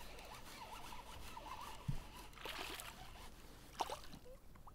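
Faint sounds of a small bass being landed: light splashing and handling noise, with a dull knock about two seconds in and a sharp click near the end.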